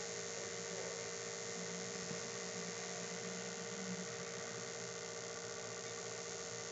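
Van de Graaff generator and high-frequency pulse generator of a homemade electrostatic ion engine running: a steady electrical hum and buzz over an even hiss.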